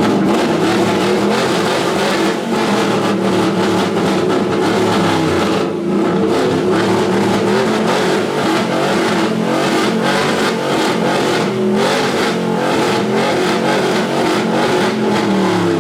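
A car engine held at high revs for a long stretch, its pitch wavering up and down, with loud tyre noise over it, as during a donut.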